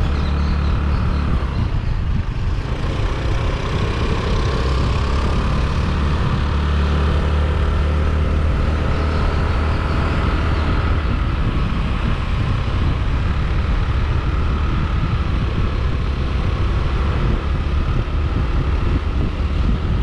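Wind buffeting the microphone of a camera on a moving scooter, over the steady running of the scooter's small engine.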